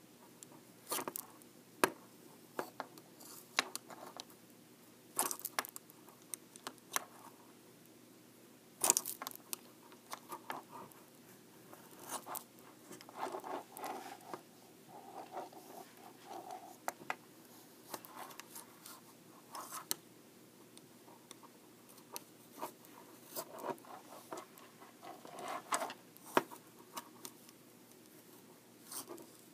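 Size 11 knitting needles clicking against each other and knocking against a desk as stitches are knitted, in irregular taps with soft scraping between them.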